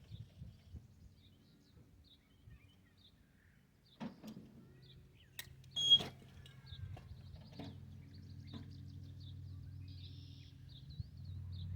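Small birds chirping repeatedly over the low, steady hum of an idling tractor engine. A few knocks come about four seconds in, and one sharp click a little later is the loudest sound.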